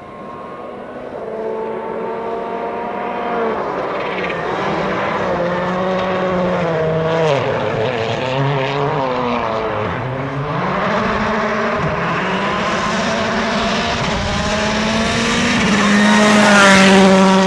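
Volkswagen Polo R WRC rally car's turbocharged 1.6-litre four-cylinder engine approaching at speed and growing louder. The revs rise and fall repeatedly through gear changes and lifts of the throttle, and the car is loudest near the end as it passes close.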